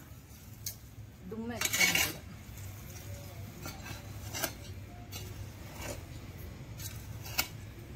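A small metal hand hoe scraping and chopping through a heap of red soil and sand on a concrete floor, mixing potting soil, with scattered short scrapes and clinks as the blade hits the floor and stones.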